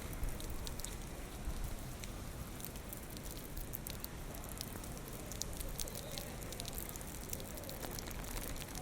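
Typhoon rain falling steadily, with irregular sharp drips and splashes of drops close by, over a steady low rumble of strong wind.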